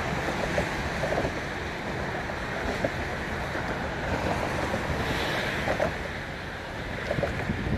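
Wind rushing over the microphone from a moving car, with steady road noise underneath.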